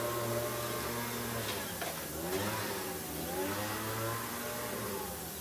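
Electric starter cranking a 1980 Chrysler 45 hp two-cylinder two-stroke outboard, turning it over steadily without it firing, its whir sagging in pitch about halfway through and again near the end. It cranks with good spark on both cylinders, which the mechanic takes for a fuel problem.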